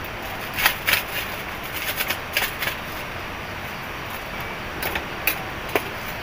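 Small plastic instant-noodle seasoning sachets being torn open and squeezed by hand: a scatter of short, sharp crinkles and ticks over a steady background hiss.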